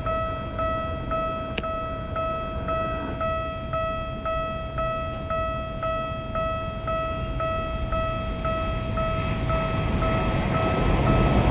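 Japanese railway level-crossing warning bell ringing its 'kan-kan' alarm steadily, about two dings a second, over a low rumble that grows louder near the end. A single sharp click sounds about one and a half seconds in.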